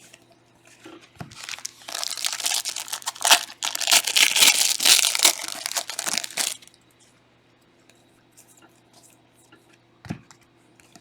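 A trading card pack's plastic wrapper being torn open and crinkled for about five seconds, then a single soft knock near the end.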